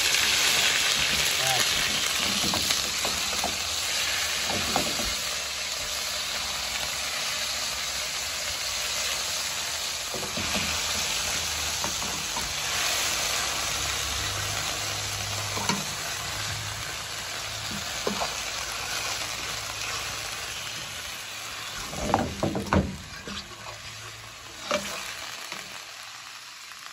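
Diced raw chicken sizzling in hot oil in a frying pan as it browns, stirred and turned with a metal fork that scrapes and taps the pan now and then. The sizzle is loudest just after the chicken goes in and slowly dies down.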